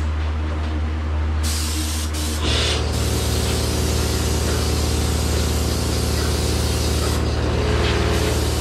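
G40 air-assisted airless spray gun with a 309 flat tip spraying a waterborne top coat: a steady hiss of spray starts about a second and a half in and breaks off briefly near the end. Under it runs a steady machine hum that grows stronger soon after the spraying starts.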